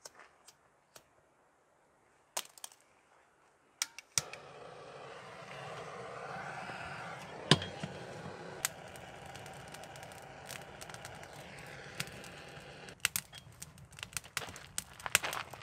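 A few clicks, then a handheld gas torch lighter is lit about four seconds in and hisses steadily for about nine seconds as it is held to the kindling. Near the end it shuts off, and the freshly lit kindling crackles and snaps.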